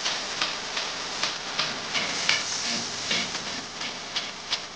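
Car assembly-line machinery: a steady hiss with irregular sharp clicks and clacks, about two or three a second, one louder clack a little over two seconds in.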